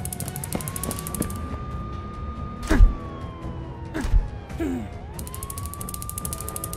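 Ambulance siren wailing slowly: one tone rises, holds, slides down over a couple of seconds, and rises again near the end. Two thumps, the loudest sounds, come about 3 and 4 seconds in, with a few short falling squeaks and a fast, even clicking that stops early and returns near the end.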